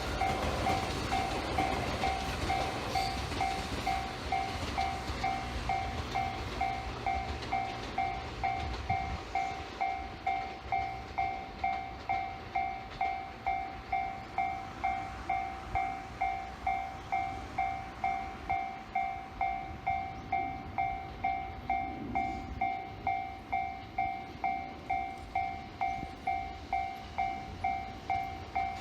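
Japanese railway level-crossing alarm ringing its repeated electronic clang in a steady, even rhythm, about one and a half strokes a second: the crossing is closed for a train. A train's low rumble passes under it and dies away about nine seconds in, while the alarm keeps ringing.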